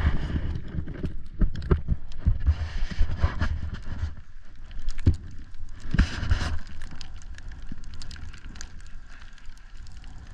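Snowboard sliding and scraping over snow, with irregular knocks and bumps, two louder scraping surges, and a steady low rumble of wind on the microphone.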